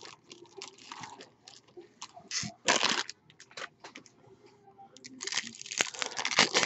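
Foil trading-card pack wrapper crinkling and tearing as it is opened by hand, with small clicks of cards being handled. There are two longer crinkling bursts, one about halfway through and one near the end.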